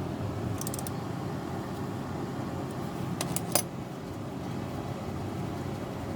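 Hand tools working on a bolt in a car's engine bay: a quick run of small metallic clicks about half a second in, and a few more near the middle, the last one the sharpest, over a steady low hum.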